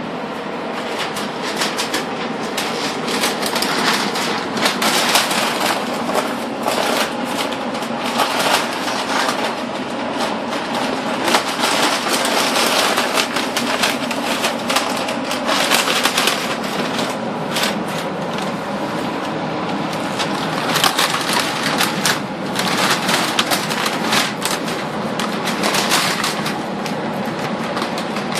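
Masking paper, plastic sheeting and tape being peeled and crumpled off a freshly painted truck door and fender, a continuous crinkling and tearing with many sharp crackles.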